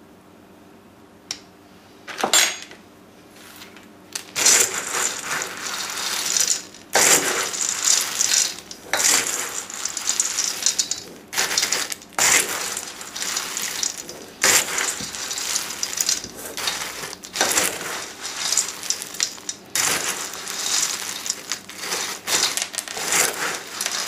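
Dry Nutri-Grain cereal and nuts being stirred in a mixing bowl: crunchy rustling in repeated strokes, each a second or two long, after a couple of light clinks in the first few seconds.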